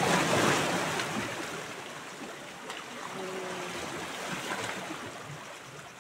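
A hooked mullet splashing and thrashing at the surface of shallow water, loudest in the first second, then dying down into a steady wash of small waves at the shore.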